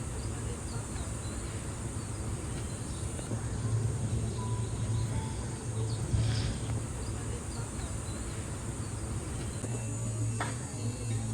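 Steady ambient background: a constant high insect-like buzz with faint chirps over a continuous low hum, with a brief louder noise about six seconds in.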